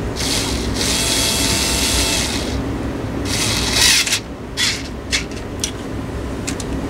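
Pressurised spray hissing from a nozzle aimed at a bare fan motor: two long blasts, then several short puffs, over a steady low hum.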